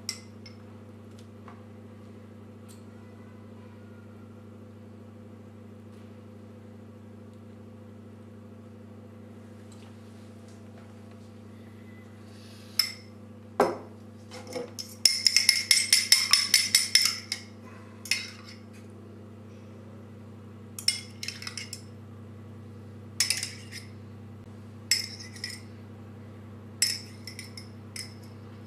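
A fork beating egg in a small ceramic bowl: a quick run of metal-on-ceramic clinks for about two seconds. Then scattered single taps as the fork knocks against the bowl's rim, with a steady low hum underneath.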